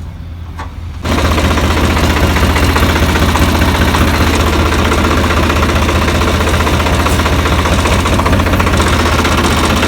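Tractor diesel engine running, a low steady hum that jumps suddenly to a much louder, harsher, steady running about a second in.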